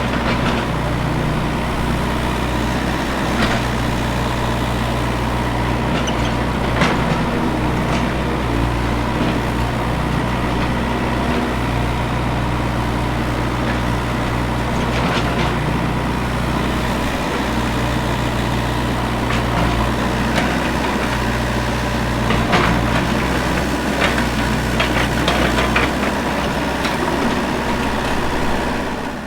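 Excavator working: its diesel engine runs with a steady low drone while scattered sharp metal clanks and knocks from the digging come through. The sound fades out at the very end.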